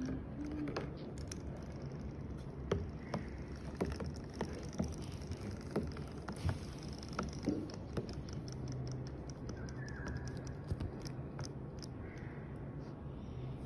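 Irregular light clicks and taps with soft water sounds from a battery-powered robotic toy fish flicking its tail in a clear plastic tub of water, and a faint low hum in the second half.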